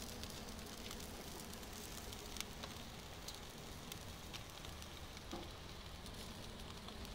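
Charcoal fire and meat roasting on a vertical spit: a faint steady hiss of sizzling with scattered small crackling pops.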